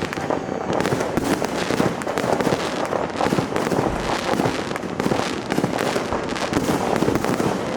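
Dense, unbroken barrage of fireworks and firecrackers going off all around: many overlapping bangs and crackles, with no pause.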